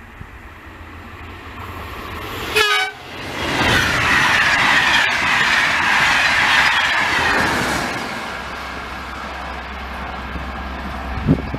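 Electric-hauled passenger train with Corail coaches giving a short horn blast about two and a half seconds in, then rushing past at speed, the noise falling in pitch as it goes by and easing to a low rumble as it draws away.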